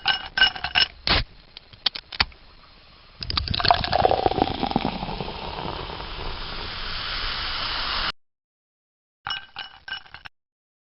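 Ice cubes clinking against a glass: a quick run of sharp, ringing clinks, then from about three seconds in a liquid poured over the ice for about five seconds, and a short burst of clinks near the end.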